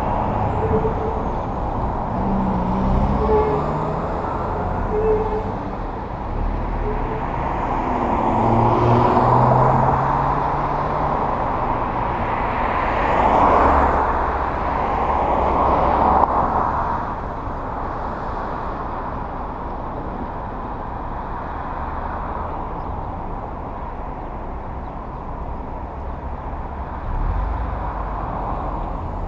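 Street traffic: cars driving past one after another over steady road noise. The loudest passes come about a third of the way in and near the middle.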